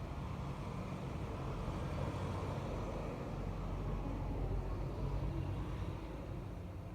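Steady low rumbling noise, swelling slightly in the middle.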